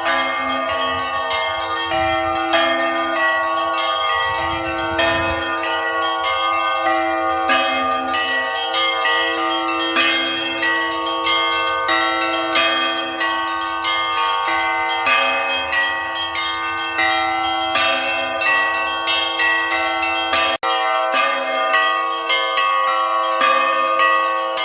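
Russian Orthodox church bells rung in a festive peal for a feast day: many bells of different pitches struck in a fast, continuous rhythmic pattern over a lower, longer-ringing bell.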